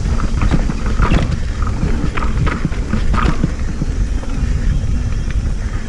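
Mountain bike riding down a rough dirt trail: wind rumbling on the microphone, with irregular knocks and rattles from the bike jolting over the ground.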